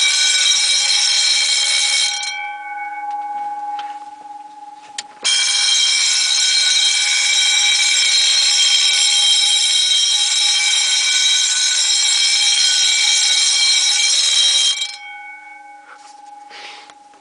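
Wheelock electric vibrating alarm bells ringing with a loud, continuous clang. They cut off about two seconds in, the gongs ringing on and fading, then start again suddenly about five seconds in. Near the end they stop once more and ring out.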